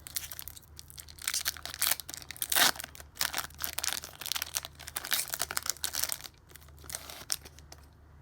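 Foil booster-pack wrapper being torn and crinkled open by hand: a run of quick tearing and crinkling rustles, loudest a little over two and a half seconds in, easing off after about six seconds.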